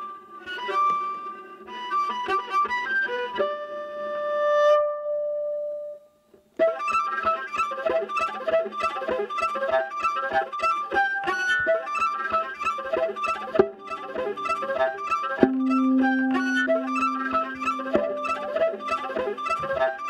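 Solo viola playing: phrases with a long note that swells, a brief break about six seconds in, then a fast, even rhythm of short repeated notes. A low held note joins about fifteen seconds in.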